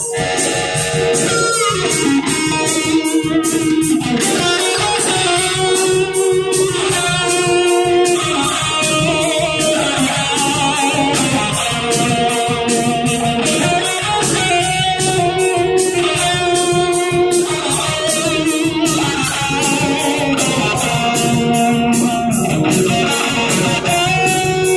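Live rock band playing, electric guitar to the fore over bass guitar and a steady drum beat.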